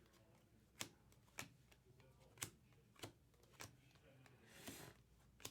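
Faint clicks of trading cards being flipped one by one through a stack, roughly one every half second to second, with a brief swish of card sliding over card near the end.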